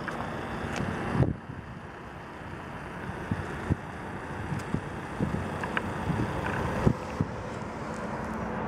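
Wind buffeting the microphone over a steady outdoor rumble, with a few light knocks. A faint engine drone builds toward the end.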